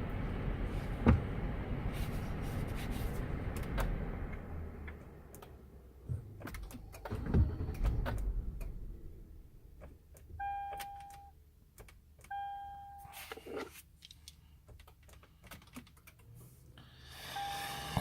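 Lexus LX 570's 5.7-litre V8 running, which the owner says is misfiring and vibrating as if a cylinder or two is missing, then switched off about five seconds in. After that come scattered clicks and two electronic beeps about a second long each, a couple of seconds apart.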